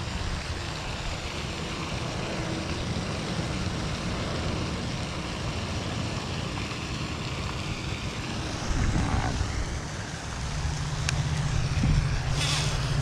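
Wind buffeting the microphone, a steady low rumble over an even rushing noise that grows stronger about ten seconds in, with a short hiss near the end.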